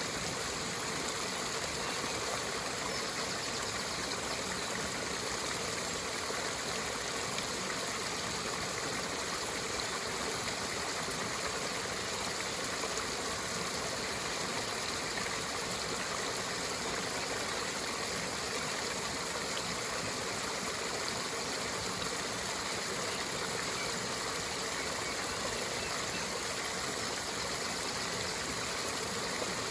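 River water running steadily, a constant, even rush with no change in level.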